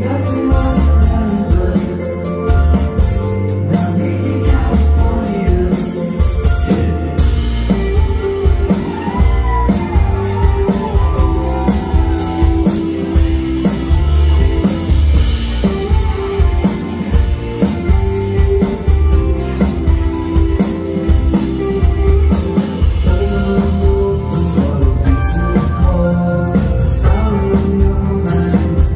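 Live rock band playing a song at full volume: electric guitars and bass over a steady drum-kit beat.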